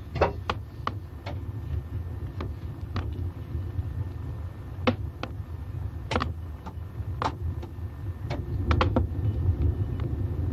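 Wood fire burning in a wood-burning stove with its firebox door open: irregular sharp crackles over a steady low rumble.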